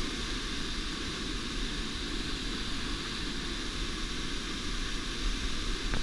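Falling water of a waterfall close by: a steady, even rush with no breaks.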